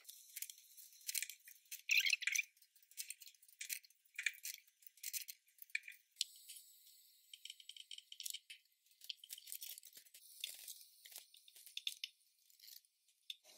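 Brush-tip marker pens scratching across paper in many short, quick strokes: faint, thin scratching.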